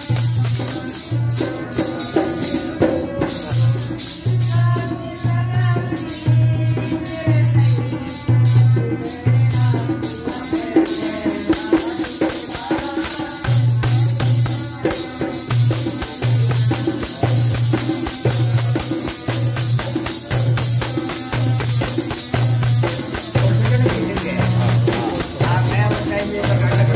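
Dholak drum played in a steady beat, a little over one stroke a second, with a jingling percussion and a harmonium melody over it; the drum drops out for about three seconds near the middle.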